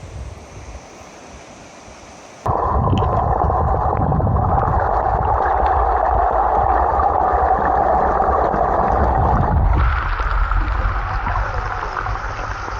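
Rushing river water, a loud steady rush with a low rumble beneath. It starts quieter, jumps sharply louder about two and a half seconds in, and shifts again near the end.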